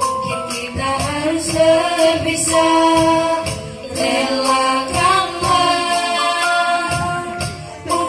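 Music: a melody sung by women's voices over a steady low beat.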